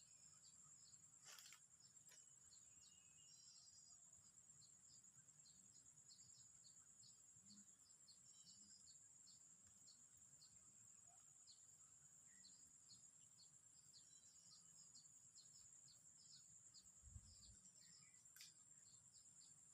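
Faint, steady, high-pitched insect drone with many short, quick chirps over it, and a sharp click about a second and a half in and another near the end.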